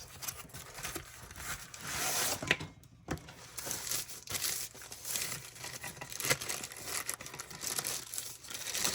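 Packaging being unwrapped by hand: irregular crinkling and crumpling, with some tearing.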